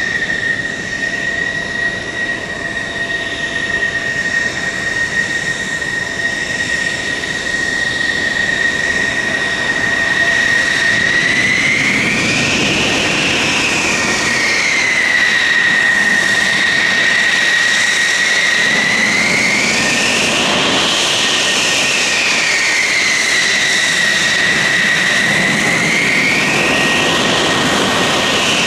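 Solo Türk F-16 fighter's jet engine whining at taxi power. A steady high whine that grows louder over the first few seconds, then three times rises and falls back in pitch in slow swells.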